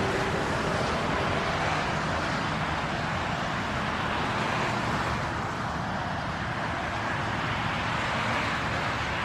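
Jet engine noise from a Boeing 777 on final approach with gear down, passing low: a steady rushing noise that eases slightly after about five seconds.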